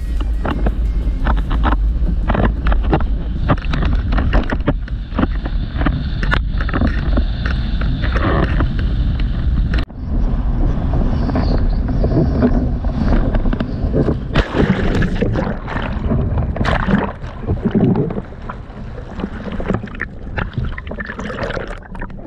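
Strong wind buffeting an action camera's microphone, with water rushing and splashing against a windsurf board planing through choppy sea.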